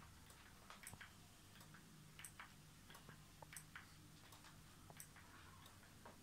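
Near silence: room tone with faint, irregular small clicks and ticks.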